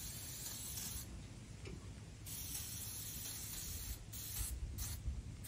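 Aerosol cooking spray hissing from the can in bursts: a long spray, a pause, another long spray, then a few short spurts near the end. It is being sprayed onto a hot campfire oven to season it.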